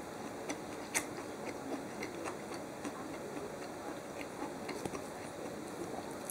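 Chewing a mouthful of food: irregular small clicks and soft crunches, the sharpest about a second in.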